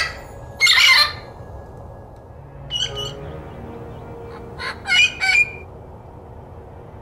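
Lilac-crowned Amazon parrot calling with loud squawks: one long call about a second in, a short call a couple of seconds later, then a quick run of three calls.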